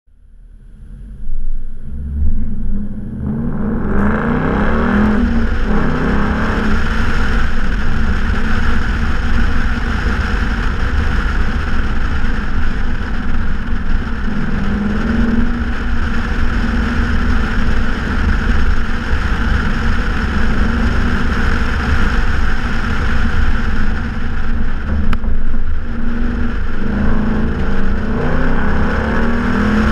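2014 Ford Mustang GT's 5.0-litre V8 with a straight-piped exhaust pulling away, its pitch rising over the first few seconds. It then cruises steadily under a rush of wind and road noise, and swells again near the end.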